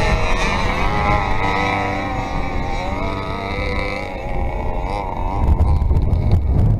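Two-stroke RC car engines running and revving, their pitch wavering up and down as the throttle is worked. A low buffeting rumble joins in near the end.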